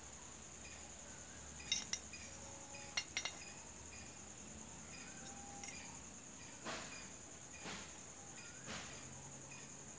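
Motorcycle clutch plates and clutch hub clinking together as they are handled, a few sharp light metal clinks, then softer strokes about a second apart.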